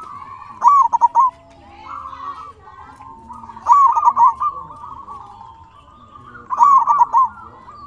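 Zebra dove (perkutut) cooing: three loud phrases of quick, bubbling repeated notes, about three seconds apart, with softer cooing behind them.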